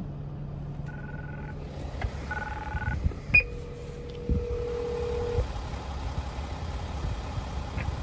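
Gate intercom call box dialing out: two short two-tone keypad beeps, then one ringing tone held for about two seconds while it calls the house. A low hum runs under it and stops about two seconds in.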